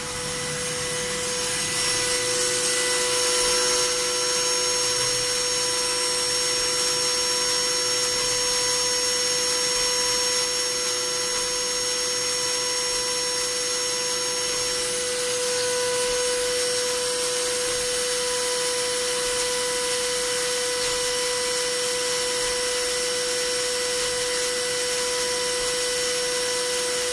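CNC milling machine's high-speed spindle running while a small end mill cuts a metal mold block under flood coolant: a steady whine of several held tones over a hiss.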